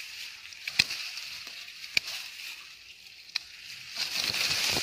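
Three sharp clicks, about a second or more apart, over a steady high hiss.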